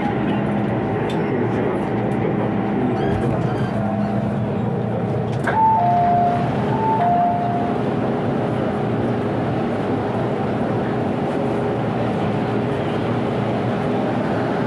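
Cabin noise of an MTR Island Line M-Train running, a steady rumble with a motor hum. About halfway through there is a click, then a two-note electronic chime, high then low, sounds twice.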